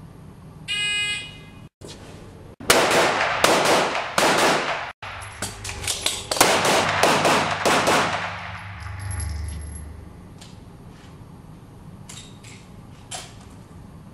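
A shot timer beeps once, then a handgun fires about a dozen rapid shots in two strings with a short pause between them for the reload, each shot ringing in the indoor range. A few faint metallic clicks follow near the end.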